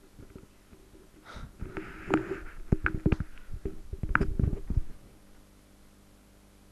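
A run of sharp clicks and low thumps close to the microphone, mixed with a breathy rustle for a few seconds. Near the end only a faint steady hum is left.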